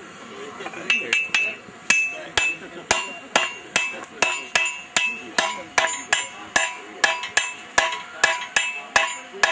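Blacksmith's hammers striking hot steel on an anvil in a steady rhythm, about two blows a second, each blow ringing briefly. The blows start about a second in.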